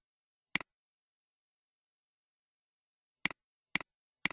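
Computer mouse button clicking: one sharp click about half a second in, then three in quick succession near the end, each a press followed at once by a softer release.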